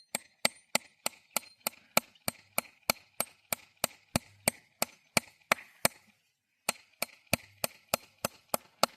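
Rapid, evenly spaced sharp knocks, about three a second, like blows struck on wood during fence work. They stop for about half a second some six seconds in, then carry on at the same pace.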